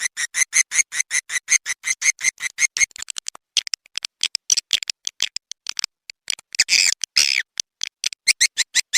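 Swiftlet lure call of edible-nest swiftlet chirps: rapid, evenly spaced high chirps at about six a second. About three seconds in they break into irregular twittering, with one longer call just before seven seconds, and the even chirping returns near the end.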